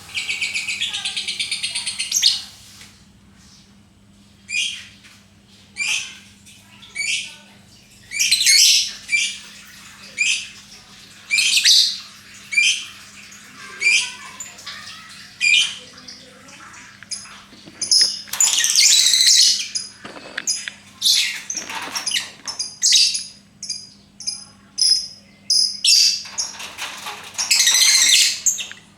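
Lovebird calling: a rapid high chattering trill for about two seconds, then short sharp chirps roughly every second or so, broken by longer chattering bursts around the middle and near the end.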